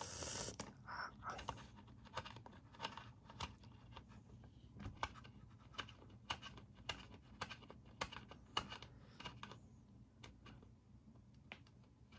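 Faint, irregular small clicks and scrapes of plastic as the housing and grind-setting dial of a Bodum coffee grinder are handled and turned by hand during reassembly.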